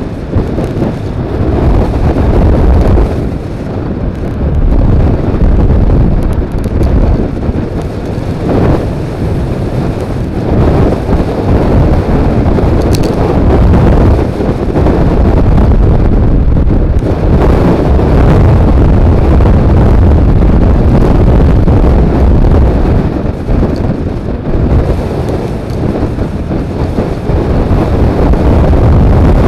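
Wind buffeting the microphone of a wing-mirror-mounted action camera on a moving Suzuki Burgman 400 scooter: a loud, low rush that swells and eases with no clear engine note.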